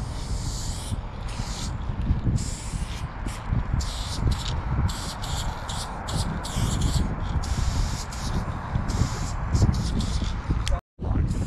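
Aerosol spray paint can hissing in many short on-off bursts of varying length as a black outline is sprayed, over a low rumble of wind on the microphone. The sound drops out completely for a moment near the end.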